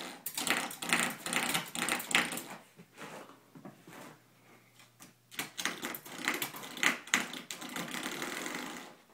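Spring door stop being struck again and again by a puppy, twanging and rattling in quick runs. A dense run at the start, a lull a few seconds in, then another run that stops just before the end.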